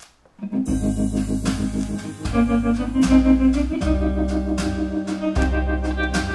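Vinyl record played back on a turntable hi-fi system: the instrumental opening of a song, starting about half a second in, with an organ holding chords over a bass line that moves to a new note every second or so.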